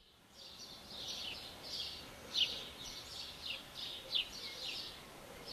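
Small birds chirping: a quick run of short, high chirps, several a second, each falling in pitch.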